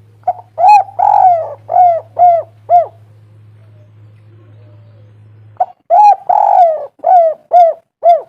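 Spotted dove cooing: two phrases about three seconds apart, each made of a couple of short coos, one longer, rougher coo, then three short coos.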